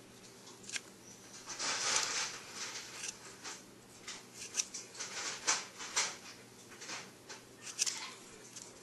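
Skookum Bushtool knife blade scraping and shaving a dry goldenrod gall: one longer scrape about two seconds in, then a run of short, irregular scrapes and sharp clicks as the gall is carved into a hand-drill hearth.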